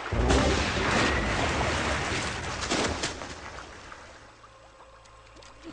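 Cartoon sound effect: a sudden loud rushing blast with a deep rumble, dying away over about four seconds.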